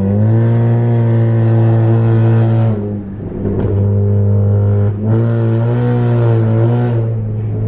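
Straight-piped car exhaust, heard inside the cabin, droning steadily as the car pulls away under throttle. It drops off for a moment about three seconds in with a little crackle, then drones again from about five seconds in.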